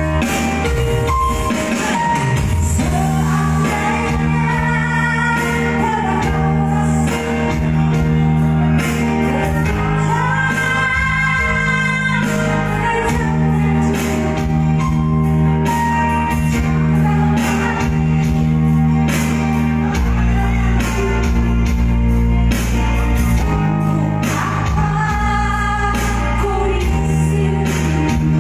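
A woman singing live into a microphone in a high, piercing voice, holding long wavering high notes, over electronic keyboard accompaniment with steady held bass notes.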